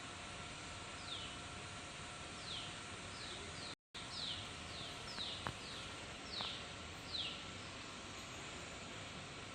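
A bird calling a string of short, high notes, each falling in pitch, about one or two a second over a steady hiss. The sound drops out briefly a few seconds in.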